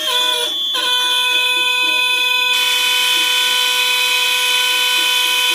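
Several fire alarm horns and smoke alarms sounding together, loud, as a stack of steady tones at several pitches. More signals join just under a second in, and a harsh buzzing horn joins about two and a half seconds in.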